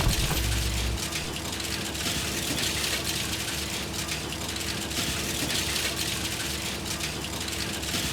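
Heavy industrial recycling machinery running under load: a dense, steady clatter of material being processed, with a constant low hum and a brief low rumble at the start.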